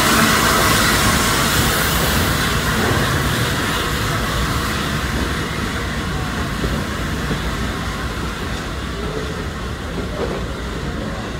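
Flying Scotsman steam train running past and pulling away, the rumble of the train fading steadily as it goes.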